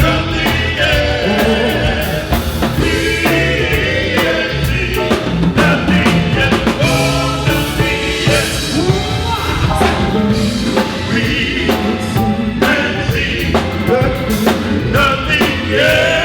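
Band and singers performing a gospel-style song, with sung vocal lines over drums and instruments.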